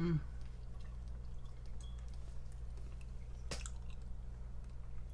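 Faint wet mouth clicks of someone chewing pizza, with one sharper click about three and a half seconds in, over a steady low electrical hum. A short hum of the voice at the very start.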